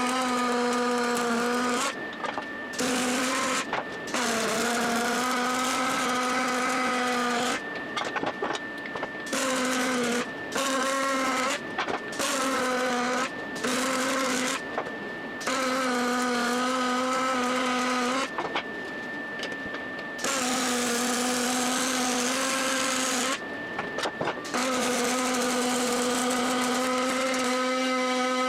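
Electric power tool motor running in repeated short bursts, switched on and off about ten times, each run lasting one to three seconds.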